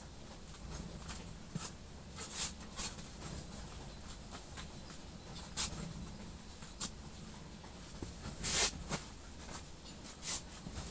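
Gloved hand brushing and smoothing loose, crumbly compost bedding in a wooden box: a few separate soft rustling scrapes, the longest and loudest about eight and a half seconds in.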